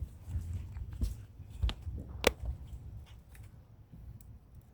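A few separate sharp cracks or knocks, the loudest a little over two seconds in.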